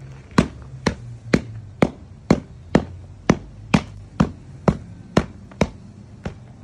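Hand tamper striking concrete stamp mats to press the pattern into the fresh slab: a steady run of sharp knocks, about two a second, that stops shortly before the end.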